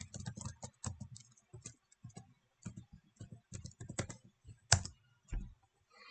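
Irregular typing and clicking on a computer keyboard, with one louder click about three-quarters of the way through.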